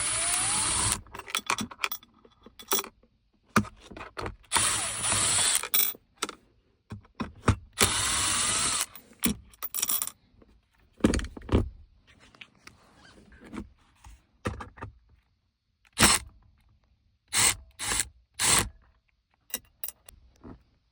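Cordless drill-driver backing out the Torx screws that hold a truck console lid, running in three short bursts of about a second each. Scattered clicks and knocks of screws and plastic parts being handled follow.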